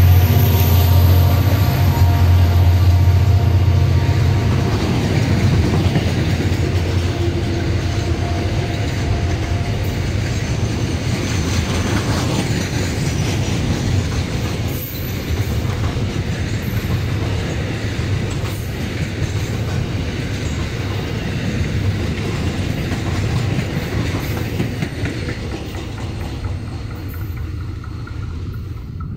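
Freight train passing close by: the EMD SD-39 diesel locomotive's engine hum fades in the first few seconds, then a long string of loaded, tarp-covered freight wagons rolls past with wheels clattering over the rail joints. The rolling noise slowly dies away near the end as the last wagon clears.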